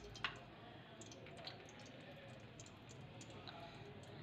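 Near silence: faint room tone with a few scattered soft clicks.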